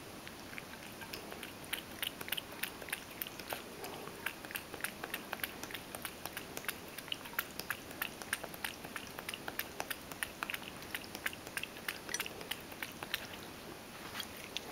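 Ragdoll cat eating from a stainless steel bowl, chewing with rapid crisp clicks, several a second. The clicks thin out near the end.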